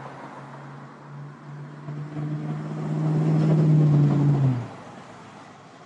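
A motor vehicle passing close by on the road. Its engine hum grows louder over a couple of seconds, drops in pitch as it goes past, and falls away quickly about four and a half seconds in.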